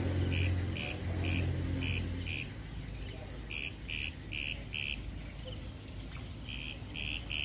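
Runs of short, high chirps repeated about three times a second, from an insect or bird calling in the riverside vegetation. Under them, a low motor hum stops about two and a half seconds in.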